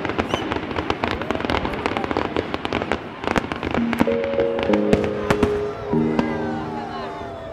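Firework display: rapid bangs and crackling bursts in quick succession throughout. Background music with held synth notes comes in about four seconds in.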